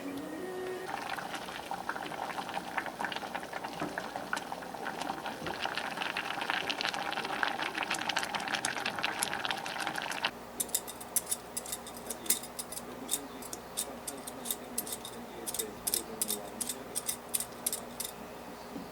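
Food cooking on the stove: a dense crackling, bubbling sound that cuts off abruptly about ten seconds in. It is followed by scattered light, sharp clicks.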